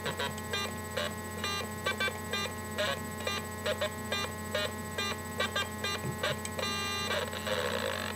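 Homemade Atari Punk Console, a 555-timer square-wave noise synth, playing through a tiny speaker salvaged from a musical greeting card. It gives a run of short, buzzy electronic blips, about two or three a second. Near the end it switches to a steadier buzzing tone that starts to warble in pitch.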